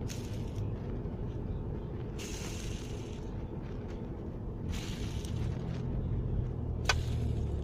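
Steady low rumble of a vehicle's cabin on the move, with a low hum joining in the second half. A few brief hissing noises and one sharp click near the end.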